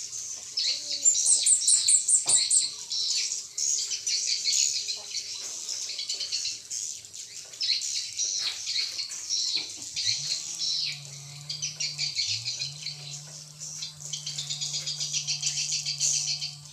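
Dense high twittering of swiftlets, with a rapid ticking trill about a second in. A low steady hum joins about ten seconds in.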